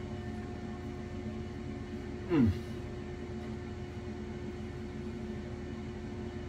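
Air fryer grill running with a steady hum from its fan. About two and a half seconds in, a brief louder sound sweeps steeply down in pitch.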